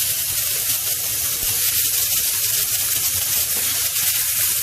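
Chicken breast frying in hot oil in a wok: a steady sizzle.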